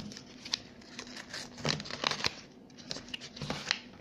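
Cardboard product box being handled and opened on a table: irregular rustling and crinkling with a few light scrapes and knocks.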